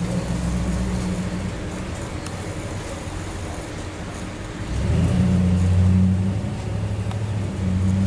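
Petrol lawn mower engine running steadily, growing louder about five seconds in as it comes closer.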